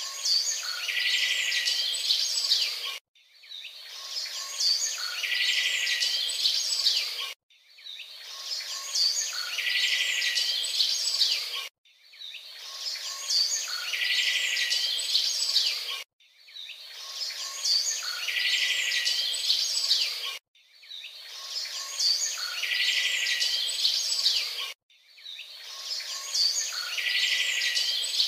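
A short recording of birds and insects chirping, looped: the same few seconds repeat about every four and a half seconds, each pass swelling in and then cutting off suddenly.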